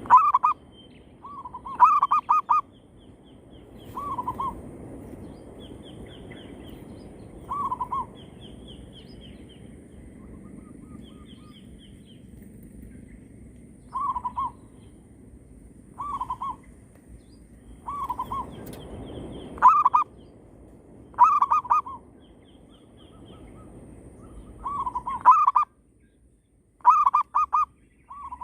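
Zebra doves (perkutut) calling, short bursts of several quick cooing notes repeated every couple of seconds, as lure and wild birds answer each other. Fainter rapid high chirping from small birds runs in between.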